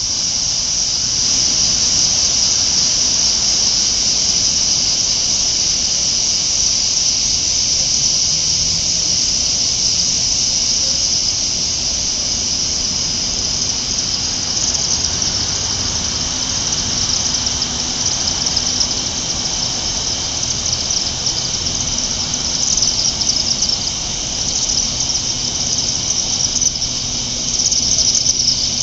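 A flock of chimney swifts keeps up a continuous high-pitched twittering chatter as they circle over the chimney where they roost, getting a little busier near the end.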